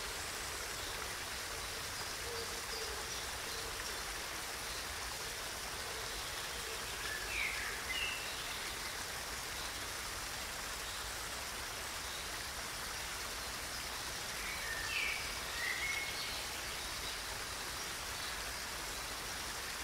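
Small cascade of water splashing over rocks in a steady rush. A bird chirps briefly twice, about seven and fifteen seconds in.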